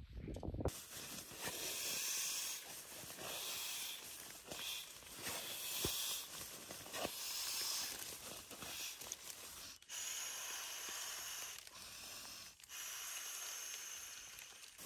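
Inflatable sleeping pad being blown up: air hisses into it in repeated pushes of a few seconds each, with the pad's fabric rustling. A brief scrape of a snow shovel at the very start.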